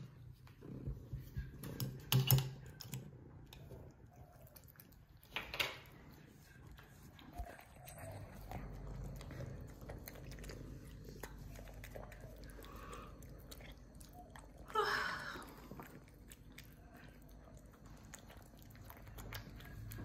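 A cat eating wet cat food chunks from a ceramic bowl: wet chewing with many small clicks and ticks. There are a few sharper clicks in the first several seconds and a brief louder sound about fifteen seconds in.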